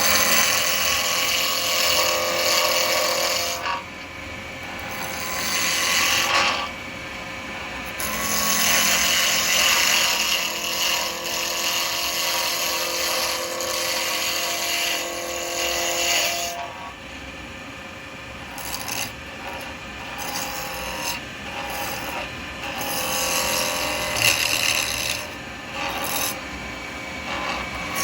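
A 12mm round carbide chisel cutting an acrylic pen blank spinning on a lathe, roughing the corners off a blank that is not yet round: a loud, rough scraping in long spells as the tool engages and pulls back. About two-thirds of the way through it eases to lighter, shorter cuts.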